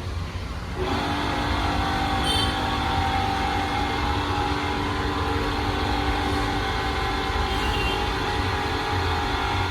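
PRAGA 411 tool and cutter grinder running: a steady electric motor and spindle hum with a few held tones, stepping up in loudness about a second in and then holding steady.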